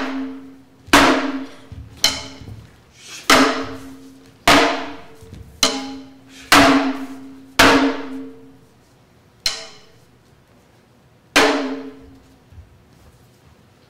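Uchiwa daiko (Japanese hand-held fan drum) struck with a stick: about ten single beats, roughly one a second, each ringing briefly with a low tone. Near the end the beats space out to about two seconds apart.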